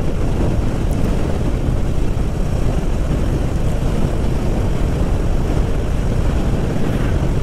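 Motorcycle riding along at speed: a steady rumble of wind rush and engine drone on the rider's microphone.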